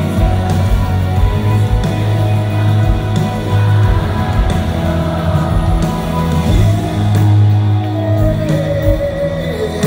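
A Christian rock band playing live in an arena, heard from the stands: drums, bass and guitars over the hall's echo.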